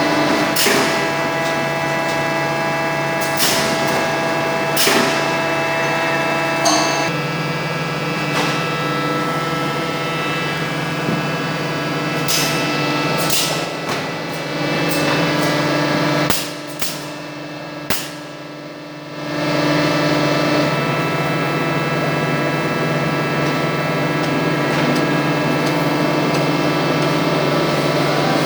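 Rotary veneer peeling lathe running: a steady machine hum made of many held tones, broken by sharp knocks every second or few. A little past the middle the sound drops and thins for about three seconds, then comes back at full level.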